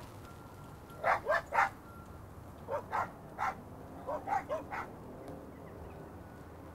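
Staffordshire Bull Terrier barking: about ten short, sharp barks in three quick bursts of three or four, then stopping about five seconds in.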